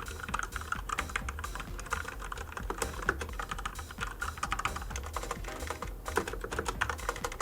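Corsair K65 RGB RAPIDFIRE mechanical keyboard with Cherry MX Speed switches being typed on fast: a continuous, irregular clatter of many keystrokes.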